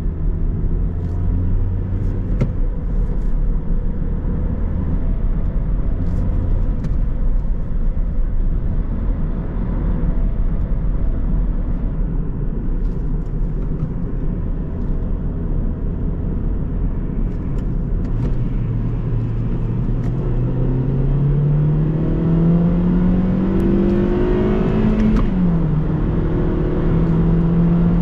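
2013 Hyundai i30's 1.4-litre four-cylinder petrol engine running with steady road noise while driving. About two-thirds of the way in, the engine note rises steadily as the car accelerates. Near the end it drops suddenly at an upshift and then holds steady.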